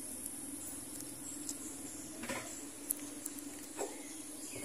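Faint outdoor ambience: a steady high insect hiss, with a few soft rustles and clicks scattered through it.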